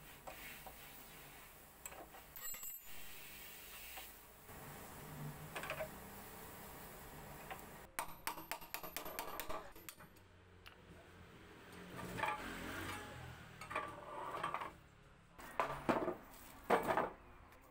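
Hammer striking the old bench's steel frame and bolts: scattered metallic clinks and a quick run of light taps about eight seconds in. A few louder knocks near the end as the wooden slats are handled.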